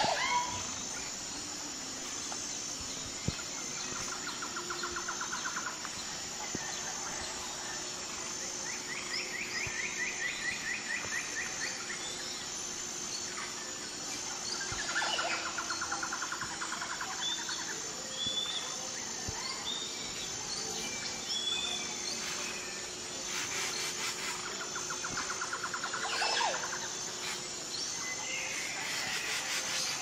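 Songbirds singing: trills of about two seconds, repeated several times, with scattered short chirps, over a steady, high-pitched, pulsing insect chirping.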